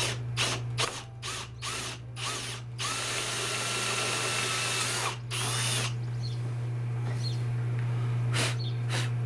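Power drill with a larger bit cutting a bolt hole through a solar panel's aluminium frame. It comes in several short bursts, then runs for about two seconds with a steady whine from about three seconds in, then gives one more short burst.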